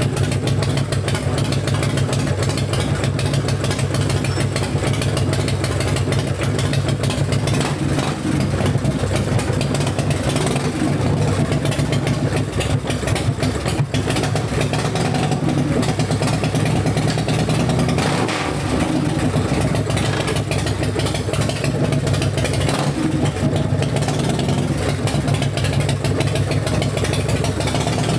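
Harley-Davidson V-twin engine idling steadily.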